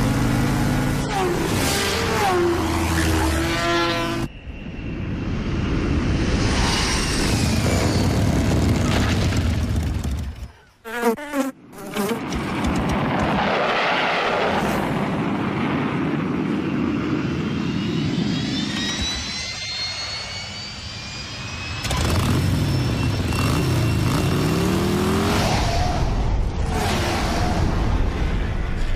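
Cartoon sound effects of insects flying: buzzing wings that change from shot to shot, with several abrupt cuts. A cluster of rising whistling tones comes about two thirds of the way through.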